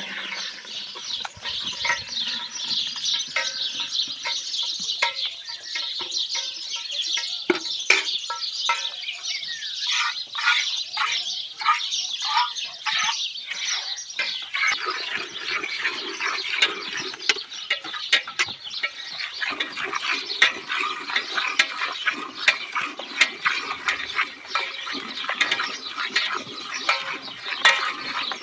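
Milk squirting from a cow's teats into a steel bucket during hand milking, in rhythmic hissing spurts.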